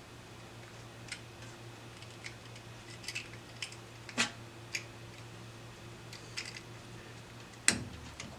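Light clicks and taps of a D-sub connector back shell and its thumb screws being handled and pressed together over a wiring harness, with a sharper click and thud near the end, over a faint steady hum.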